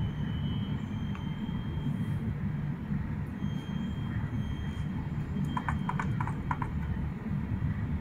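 Steady low background rumble, with a faint high-pitched tone coming and going and a quick run of about six clicks around five and a half seconds in.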